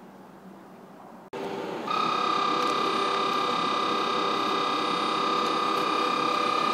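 Electric locomotive giving a loud, steady electrical whine of several constant tones that begins abruptly about a second in; before it there is only a quieter background.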